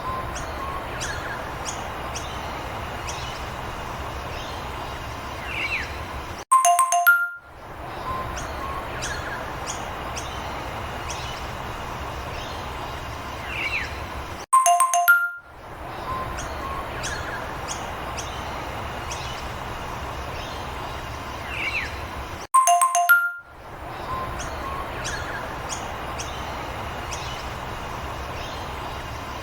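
A short background sound loop repeating about every eight seconds: a bright chime of a few notes, then a steady noisy background with scattered bird chirps.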